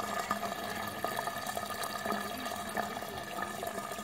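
Water running steadily down a PVC standpipe drain in an aquaponics gravel grow bed, with small irregular drips, over a steady hum.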